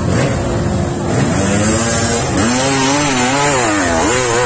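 Dirt bike engine revving hard and unevenly, its pitch rising and falling again and again as the bike claws up a steep mud slope under load.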